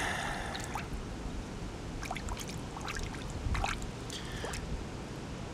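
Water splashing and dripping in small scattered drops as a coin is rinsed and rubbed clean by hand.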